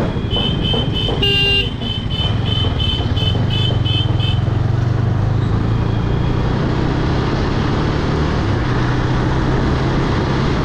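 KTM 250 Duke's single-cylinder engine running as the motorcycle rides along a wet road, with tyre and wind noise. A vehicle horn honks once about a second and a half in, over a high beeping that repeats about twice a second and stops about four seconds in.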